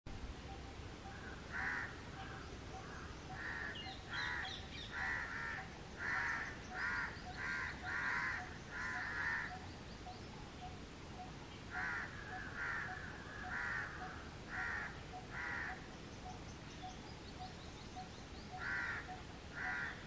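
House crows cawing: runs of short, harsh caws, roughly one or two a second, broken by pauses of a couple of seconds.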